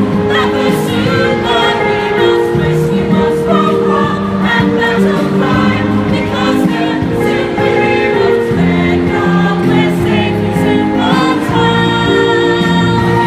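A mixed group of men and women singing a musical-theatre song together in chorus over backing music with a steady beat.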